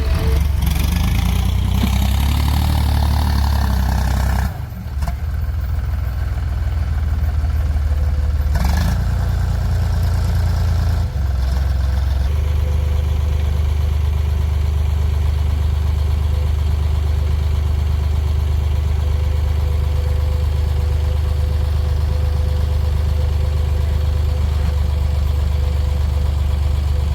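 Heavy diesel engine of a backhoe loader or tractor running steadily at a low, even pitch. A rushing, clattering noise sits over it for the first four seconds, and a short burst comes near nine seconds.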